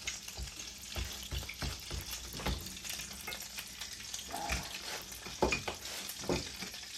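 Fried pies made from canned-biscuit dough sizzling in a pan of hot grease: a steady crackling hiss with small pops, plus a few soft knocks.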